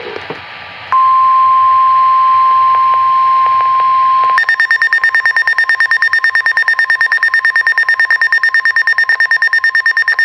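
NOAA Weather Radio's 1050 Hz warning alarm tone, a steady high beep, sounds for about three and a half seconds, announcing a warning broadcast. About four seconds in, it gives way to a rapid, higher pulsing beep, about eight beeps a second, typical of a weather radio receiver's own alert alarm.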